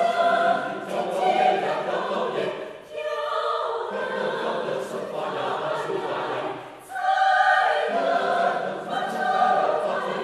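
Mixed choir of women's and men's voices singing together, in phrases with short breaks about three and seven seconds in, each followed by a fresh entry in the high voices.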